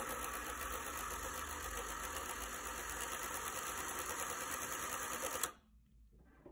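Sewing machine running its bobbin winder, a steady whir as the bobbin fills with thread. It cuts off abruptly about five and a half seconds in, with the bobbin full.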